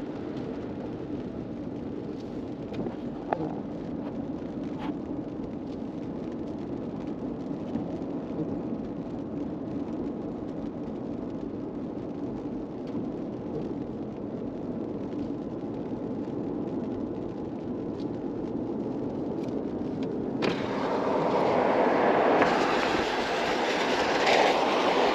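Steady road noise inside a car's cabin as it drives on a wet road in rain: tyres on the wet surface and the engine, with a few light ticks. About twenty seconds in, the sound cuts abruptly to a louder, wider rushing noise of wind and waves at the seashore.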